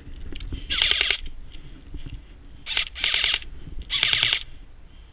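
Airsoft rifle fired in four short full-automatic bursts, each a fast run of clicks, the first about a second in and the last three close together near the middle.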